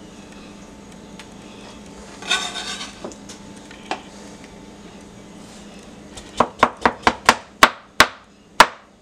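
Kitchen knife slicing avocado on a plastic cutting board. The blade strikes the board in a quick run of about eight sharp taps in the last few seconds, after a short scrape a couple of seconds in.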